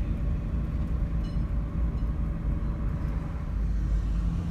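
A car in motion, heard as a steady low rumble of road and engine noise.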